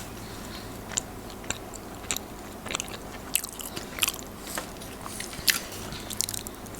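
Close-up mouth sounds of someone biting and chewing a baked pastry: irregular crisp, wet clicks and crunches a few times a second.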